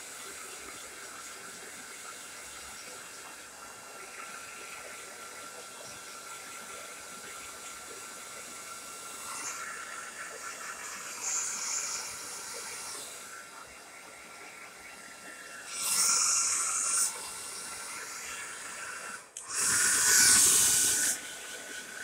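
Tresemme Salon Smooth hair dryer running, a steady rush of air with a thin motor whine. Twice, about two-thirds of the way in and again near the end, the air rush gets much louder for a second or so.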